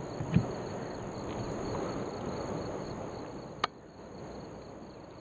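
Steady outdoor ambience with a thin, high, continuous insect buzz over a soft rushing noise. There is a low knock about half a second in and a sharp click about three and a half seconds in.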